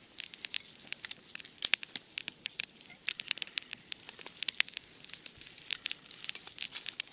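Small campfire of dry twigs and kindling crackling, with irregular sharp snaps and pops several times a second.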